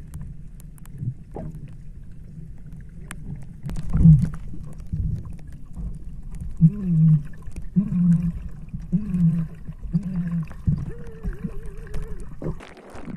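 Muffled underwater sound from a submerged camera in a pool: a steady low rumble of moving water and bubbles with knocks against the housing, and one loud thump about four seconds in. Then come four short muffled calls, as of people vocalizing under water, and a longer wavering one. Near the end the sound suddenly thins as the camera comes up out of the water.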